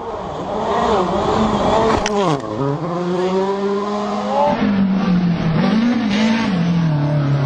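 Rally car engines at high revs. About two seconds in the engine note drops steeply and climbs straight back. After a cut about halfway through, another car's engine runs on at a steady high pitch that wavers up and down.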